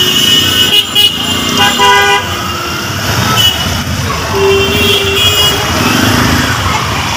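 Dense street traffic: vehicle horns honk several times, about two seconds in and again around the middle, over the steady noise of engines.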